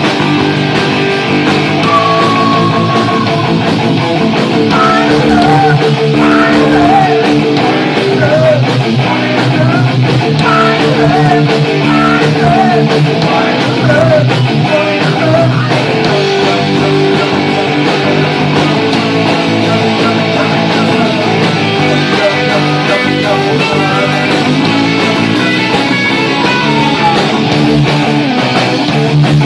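Punk rock music played loud and steady, led by electric guitars.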